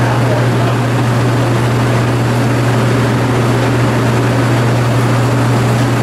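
Walk-in cooler's refrigeration unit running, its evaporator fans giving a steady rushing drone over a constant low hum.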